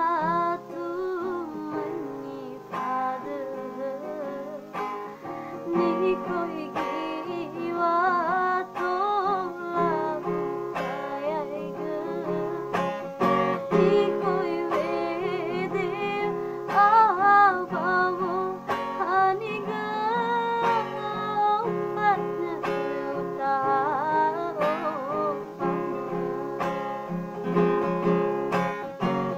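A woman singing a slow melody with vibrato over acoustic guitar accompaniment.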